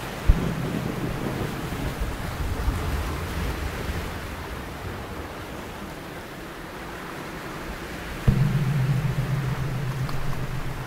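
Waves breaking and washing on a rocky shore, a steady hiss of surf. Over it, low droning tones come in with a sudden hit just after the start and again, louder, about eight seconds in.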